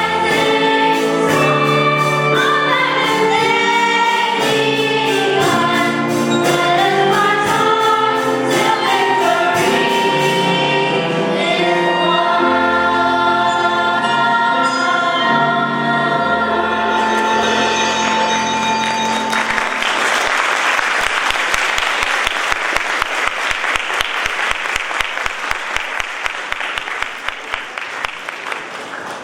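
A choir of voices singing a song in harmony, which ends about two-thirds of the way through. Audience applause follows and continues to the end.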